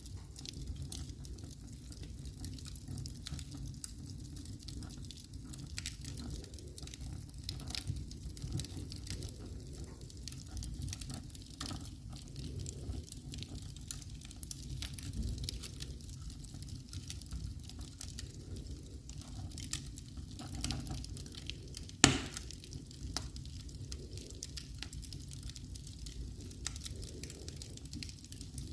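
Wood fire crackling in a fireplace, with scattered snaps and pops over a low steady noise. One much louder pop comes about three-quarters of the way through.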